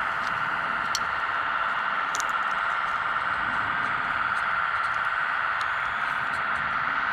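Steady whirring of the small electric motors and gears of radio-controlled construction models, as a tracked loader drives and lifts its bucket. A few faint ticks sit on top.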